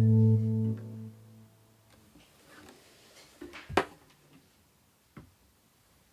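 Final acoustic guitar chord ringing and fading away over the first second and a half. Then a sharp click a little before the middle, and a fainter tick later.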